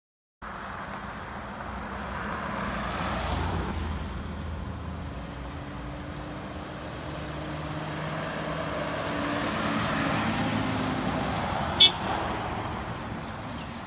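Fire truck driving past on the road: diesel engine and tyre noise swelling and fading, with one short sharp blip about twelve seconds in.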